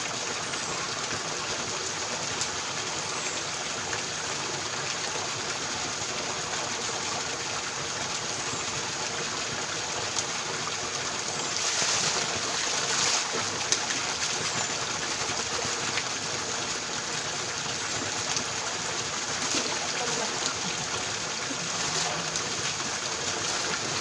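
Spring water pouring steadily from a pipe spout onto rocks and into a shallow pool. About halfway through the splashing briefly gets louder as hands are put into the falling stream.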